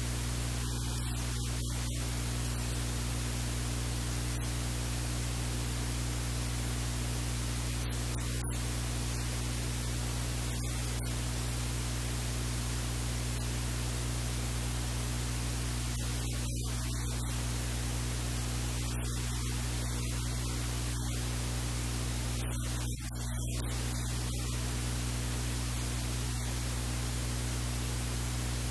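Steady electrical hiss with a low hum and its overtones, running evenly with no clear kitchen sounds above it.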